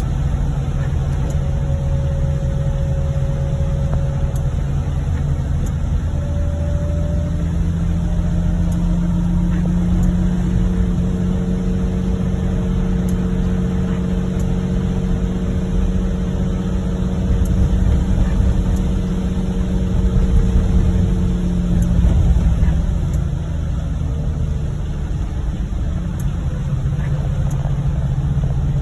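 Inside a vehicle driving on a rain-soaked road: a steady low engine and road rumble with tyre noise. The engine note holds steady from about eight seconds in and drops away near twenty-two seconds as the vehicle eases off.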